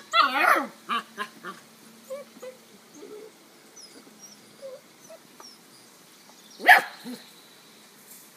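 Puppy barking in short yaps: a quick run of them at the start, a few more in the next second, then one more loud yap later on.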